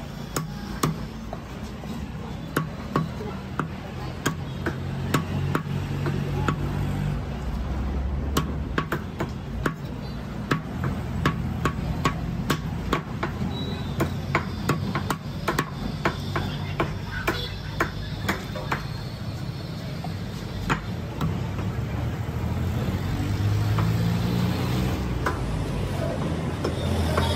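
Heavy meat cleaver chopping dressed chicken on a wooden log chopping block: a run of sharp chops, one or two a second, that stops near the end.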